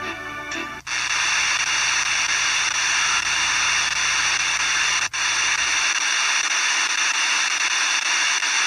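FM radio receiver: the last moment of a Russian-language broadcast with music cuts off about a second in as the set is tuned up the OIRT band, leaving steady hiss of interstation static. There is a brief break in the hiss about five seconds in.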